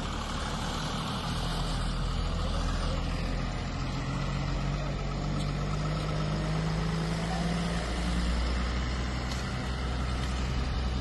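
A heavy vehicle's engine running steadily with a low, constant drone.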